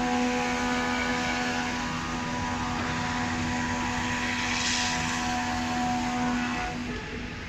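A CNC router spindle running with a steady pitched whine over a haze of machine noise; the whine cuts off near the end.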